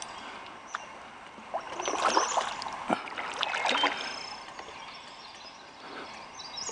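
Water moving around a kayak hull, with handling noises from the boat. Louder noisy bursts come about two seconds and three and a half seconds in.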